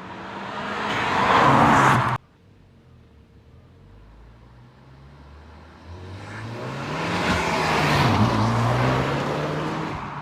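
Ford Focus ST's turbocharged 2.0-litre four-cylinder accelerating. The engine swells and cuts off sharply about two seconds in, then after a quieter stretch it revs up again with rising pitch and eases off near the end.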